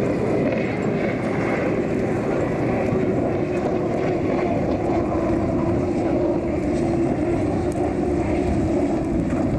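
Unlimited hydroplane race boats running flat out, a loud, steady engine drone over the water whose pitched note grows stronger about halfway through.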